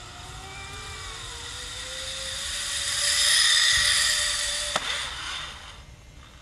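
Zipline trolley pulley rolling along the cable: a whirring hiss that swells as the rider comes close and then fades, with a faint tone rising in pitch. One sharp click comes just before it dies away.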